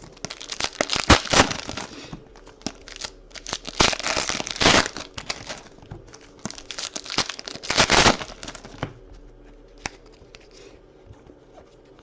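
Card pack wrappers crinkling and tearing as Panini Prizm basketball packs are ripped open by hand. It comes in several bursts of rustling over the first eight seconds, then only a few light clicks and handling sounds.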